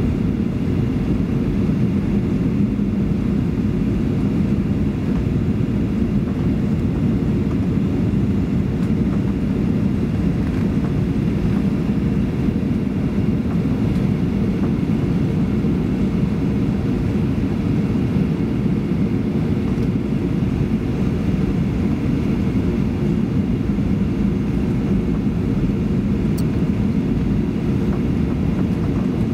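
Steady cabin noise inside a Boeing 737-800 on approach to landing: a constant low rush of airflow and the CFM56-7B jet engines, heard from a window seat over the wing.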